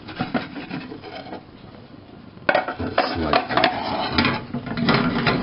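Frying pan and ceramic plate knocking and scraping together as an omelette is flipped onto the plate and slid back into the pan. There is some clatter at first, a quieter moment, then a sudden run of sharp knocks and scrapes about two and a half seconds in.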